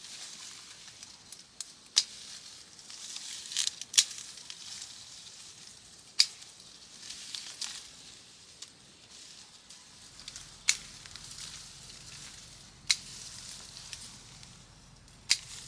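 A steady hiss broken by sharp knocks or snaps every couple of seconds, about seven in all at uneven spacing.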